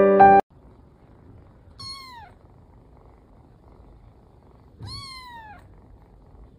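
Piano music cuts off abruptly just after the start, then a cat meows twice about three seconds apart, each meow falling in pitch, the second one longer.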